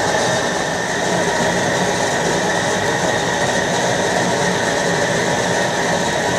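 Gas torches burning steadily in a continuous loud rush, heating a copper boiler for silver soldering.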